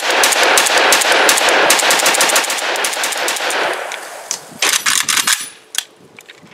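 Bulgarian Arsenal SAM7SF 7.62x39 rifle fired in a fast string of shots, each ringing out with echo. The string thins after about four seconds to a few last shots and stops about six seconds in.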